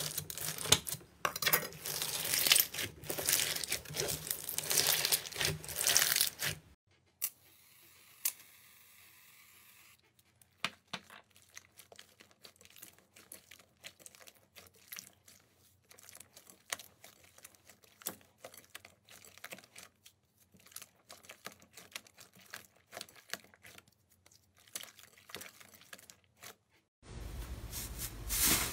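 Crunchy bead-filled slime crackling and popping densely as a blade is drawn through it, for the first six or seven seconds. Then a long quieter stretch of scattered soft clicks and squishes as foamy slime is kneaded by hand, and near the end a loud crackle again as airy green slime is pressed.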